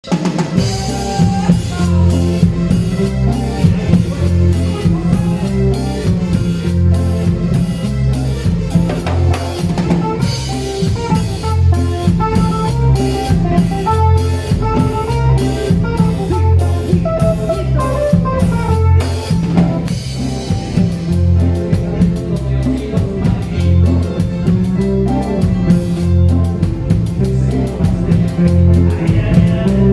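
Live band music with drum kit, bass and guitar playing at a steady beat.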